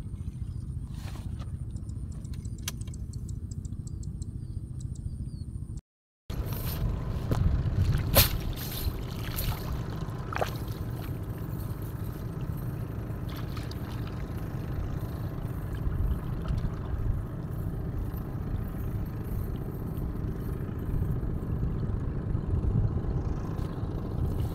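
Cast net being handled in shallow water: clinks and clatter of its chain lead weights and light water sounds, over a steady low rumble, after a brief dropout about six seconds in.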